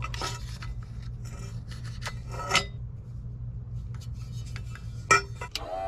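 Short scrapes, rubs and clicks of car parts being handled and worked loose by hand, over a steady low hum.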